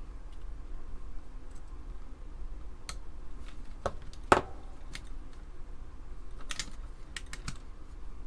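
Scattered plastic clicks and taps from an Amiga keyboard's spacebar and keycaps being handled and pressed while the spacebar is worked onto its crossbar. The sharpest click comes about four and a half seconds in.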